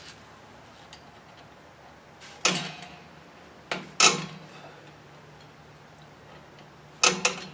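A 1999 Toyota Tacoma's rear drum brake star-wheel adjuster being turned by hand to expand the brake shoes, giving a few sharp metallic clicks, two close together near the middle and a cluster near the end, with a faint low metallic ring between them.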